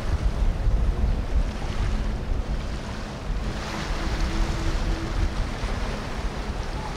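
Wind buffeting the microphone over a boat engine's steady low hum and rushing water, with a short higher hum a little past the middle.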